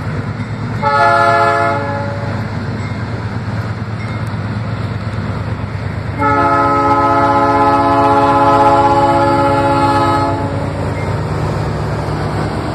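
Diesel freight train locomotives passing close by, engines rumbling steadily, sounding a multi-chime air horn twice: a short blast about a second in, then a long blast of about four seconds starting about six seconds in.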